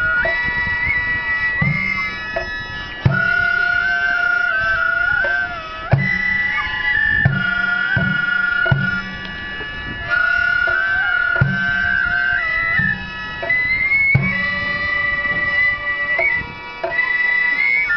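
Gagaku music for bugaku dance: reedy double-reed pipes (hichiriki) hold long, nasal notes that slide and step between pitches, while a drum is struck every second or two.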